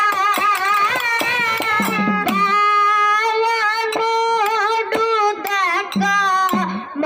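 A girl singing a Kannada dollina pada folk song through a microphone in long, wavering held notes, with small brass hand cymbals struck in a steady beat under her voice.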